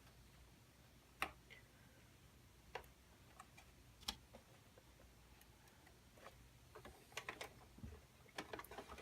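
Light clicks and taps of parts and cables being handled inside a PC case: a few single ticks, then a quicker run of small clicks near the end.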